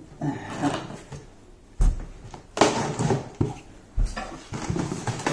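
Knife slitting the packing tape along the seams of a cardboard box, with scratchy cutting and scraping and several sharp knocks as the box is handled.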